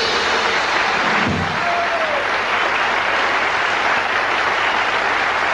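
Audience applauding as a live jazz tune ends, the clapping dense and steady throughout. A low thump comes just over a second in, and a short falling note or call near two seconds.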